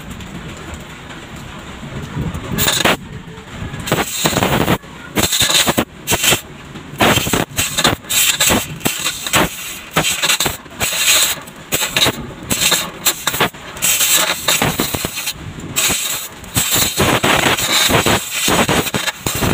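Electric arc welder tacking a sheet-steel patch panel into a car's floor pan: short crackling bursts of the arc that stop and start many times, beginning about three seconds in.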